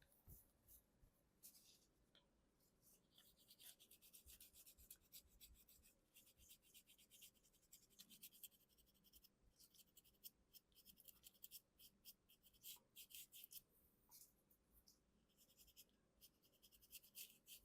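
Faint, rapid scratching and rubbing strokes on a small laser-cut wooden piece as a smudge of stray white paint is scrubbed off. The strokes come in several runs separated by short pauses.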